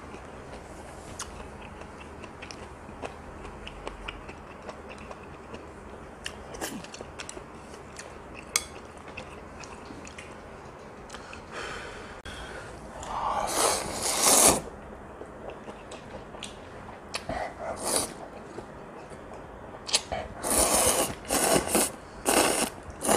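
Ramen noodles slurped from chopsticks: one long loud slurp about 13 seconds in and a run of quick slurps near the end, with soft chewing and faint clicks in between.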